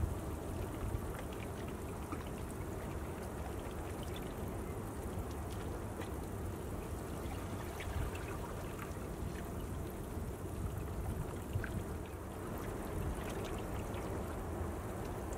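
Harbour water lapping and trickling, with many small scattered drips and ticks over a steady low rumble.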